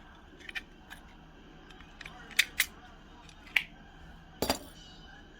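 A few sharp clicks and taps of a small die-cast metal toy car and its parts being handled on a work surface, with one louder knock near the end.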